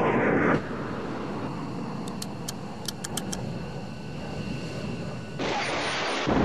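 Jet fighter engine noise, a steady rushing roar, during a low pass. It is louder for the first half-second and again from about five seconds in. A few short, faint high-pitched ticks come between two and three seconds in.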